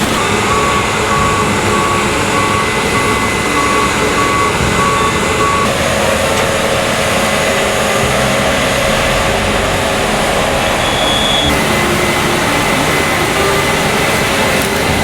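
A combine harvester running loud, with a reversing alarm giving a steady series of evenly spaced beeps for the first five seconds or so. The machine noise changes abruptly twice along the way.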